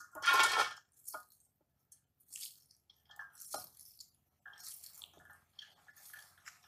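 Shredded cabbage being pushed by hand out of a plastic bowl into a hot aluminium pot: a louder burst right at the start, then irregular soft rustling and pattering as the shreds drop in.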